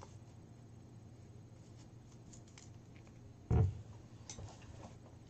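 Faint crinkling and light clicks of a small folded paper slip being unfolded by hand, with one dull thump about three and a half seconds in.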